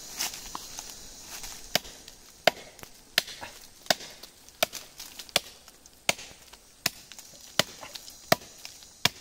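Small axe chopping into a living tree trunk: steady, evenly paced blows about every three quarters of a second, starting a couple of seconds in. The blows open the trunk to reach a wild bee nest.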